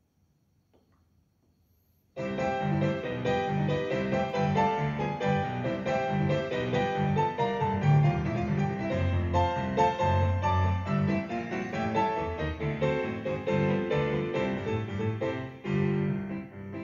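Yamaha DGX-660 digital keyboard playing a piano accompaniment from its Pianist preset style: a steady, rhythmic pattern of piano chords over bass notes. It starts abruptly about two seconds in, and the sound changes near the end.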